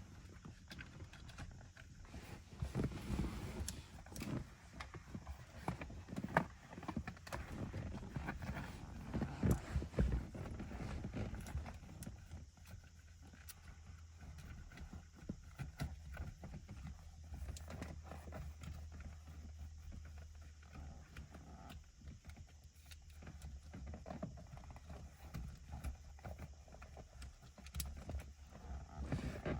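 Irregular knocks, clicks and rustling of hands working LED strip wiring and plastic twist ties around a car's seats and interior trim, busiest in the first dozen seconds.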